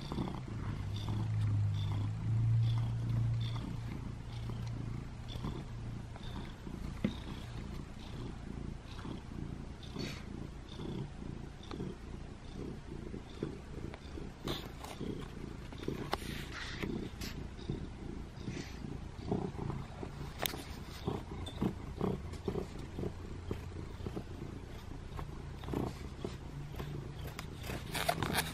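Domestic cat purring close up: a steady low rumble with a fast pulse, strongest in the first few seconds, with scattered short rustles and clicks in the second half.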